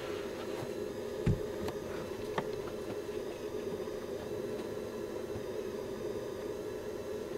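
Steady droning hum in a small room, with a few faint clicks and one dull low thump about a second in.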